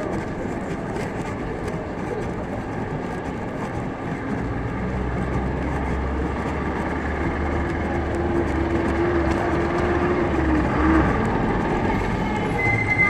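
Busy city street traffic of buses and matatu minibuses, with a nearby engine's low rumble from about four seconds in until about eleven seconds. A short high-pitched beep sounds near the end.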